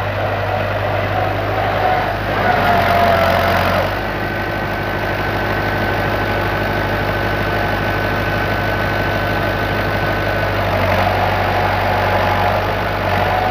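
Vintage David Brown tractor's engine running steadily under load as its front-loader bucket digs into a bank of soil. A thin high whine rides over the engine for several seconds in the middle.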